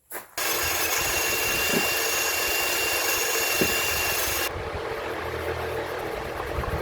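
Truck engine idling steadily. A thin high whine and a hiss sit on top of it and drop away suddenly about four and a half seconds in, leaving the lower engine sound running on.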